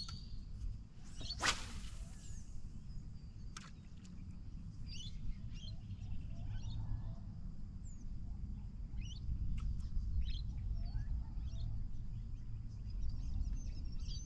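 Birds chirping and calling here and there over a steady low rumble, with one brief swish about a second and a half in.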